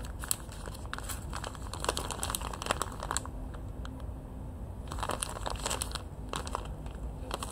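Crinkling and rustling of a pocket letter's plastic sleeves and paper being handled, in two spells of crackly handling with a short pause in the middle.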